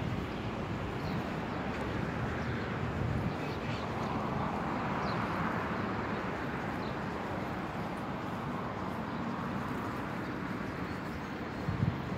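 Steady road traffic noise from the street alongside, swelling as a vehicle passes about five seconds in, with wind rumbling on the phone's microphone and a few faint high chirps.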